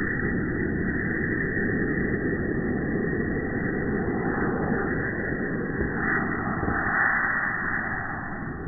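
Napalm and gasoline fire burning: a steady, even rushing noise with no sharp bangs.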